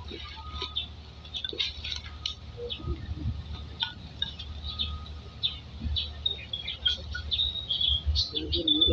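Small birds chirping and twittering in the trees: many short, high calls, thickening near the end.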